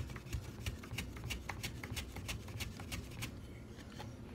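Green banana being slid back and forth over the blade of a wooden hand mandoline, cutting thin chips: quick, even slicing strokes, about three a second, that stop about three seconds in.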